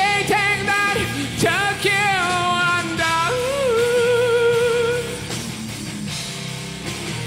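Male rock singer's live vocal, from an isolated vocal track, singing drawn-out notes with a wavering pitch; a long held note runs from about three to five seconds in. After that the voice drops out and it goes quieter.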